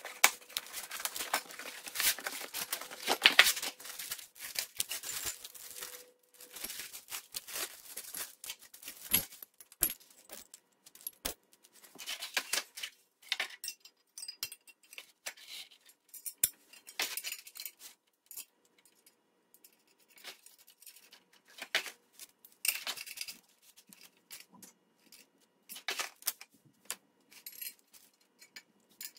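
A cardboard box being opened: strapping cut and cardboard torn and rustled for the first several seconds, then scattered clinks and clatters of loose bolts, washers and nuts and a steel extension plate with spring tines being handled.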